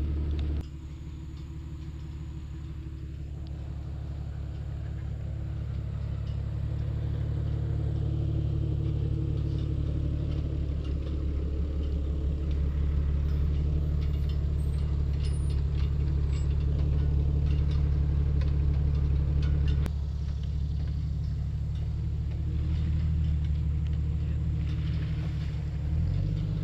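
Motor vehicle engine running with a steady low drone, growing louder over the first dozen seconds; the sound changes abruptly about half a second in and again near twenty seconds.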